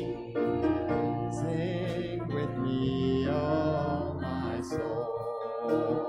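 Choir and congregation singing a slow hymn of repeated short phrases, with long held notes.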